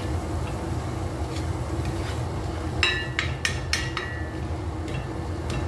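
Spatula stirring chopped onions in oil in a metal cooking pot, over a steady low hum. About three seconds in, the spatula knocks against the pot about five times in quick succession, each knock ringing briefly.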